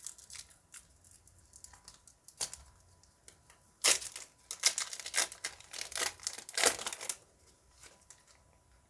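A foil trading-card booster pack being torn open and its wrapper crinkled. There are a few light crackles at first, then about four seconds in a dense run of tearing and crinkling that lasts about three seconds.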